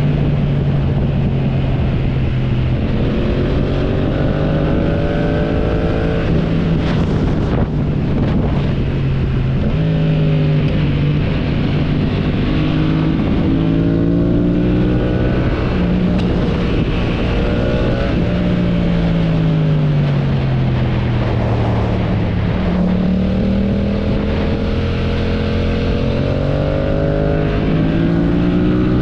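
Motorcycle engine pulling through the gears, its pitch climbing in steps and dropping back at each shift. About two-thirds of the way in it winds down for a long slowdown, then picks up and climbs again. Brief wind rush on the microphone just after a quarter of the way in.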